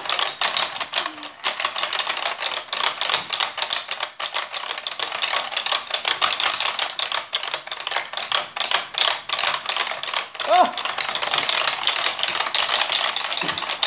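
Rapid, continuous plastic clicking and clacking from the Hydro Strike water game's push-button controls being pumped fast by both players. A short vocal cry rises and falls about ten and a half seconds in.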